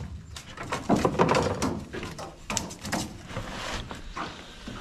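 Irregular knocks, taps and scuffs on the wooden deck boards of a small boat as a freshly caught fish is unhooked and handled, with a louder cluster about a second in.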